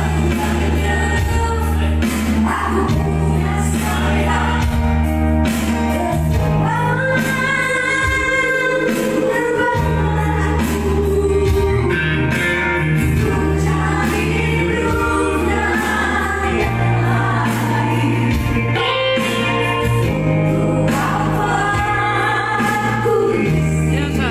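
A woman singing live into a microphone in a high, shrill voice, with held and gliding notes, over electronic keyboard accompaniment with a steady bass line, amplified through a PA.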